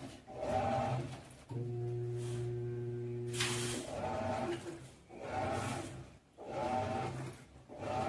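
EASY 16 kg top-load washing machine running its cycle, its motor humming in short pulses about once a second as the drum works the load, with one steadier hum lasting about two seconds near the middle and a brief hiss just after it.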